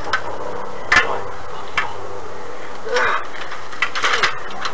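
A sharp knock about a second in, then brief shouted voices and a quick cluster of knocks and clatter near the end, over a steady hiss.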